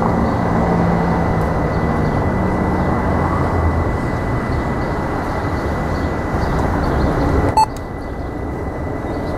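Background noise with a low rumble of passing traffic and a steady high-pitched tone. About three-quarters of the way through, a sharp click cuts the tone off, and the noise is a little quieter after it.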